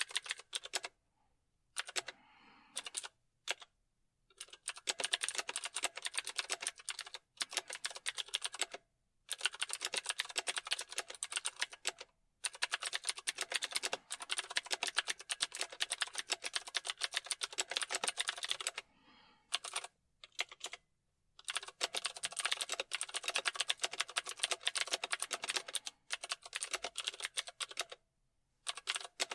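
Typing on a computer keyboard: rapid runs of keystrokes lasting several seconds, broken by short pauses.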